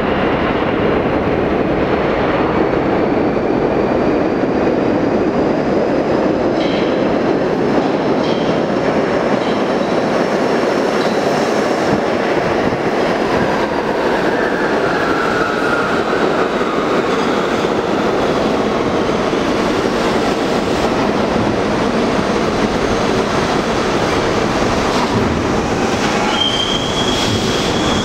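R32 subway train pulling into an underground station: the loud, steady noise of steel wheels on rail, a brief wheel squeal about halfway, and a high brake squeal over the last couple of seconds as it slows.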